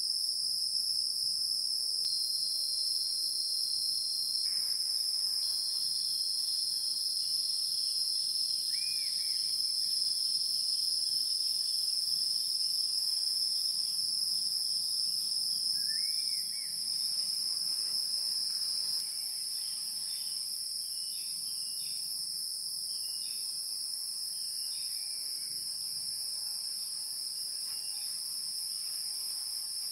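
Steady high-pitched insect chorus, a dense continuous chirring of crickets or similar insects, with two brief faint chirps partway through. It gets slightly quieter a little past halfway.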